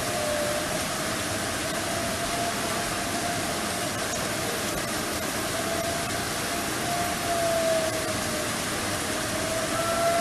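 Outdoor tornado warning siren heard faintly as a single tone that wavers slowly in pitch, under a steady hiss; the tone grows louder near the end as the siren comes back on.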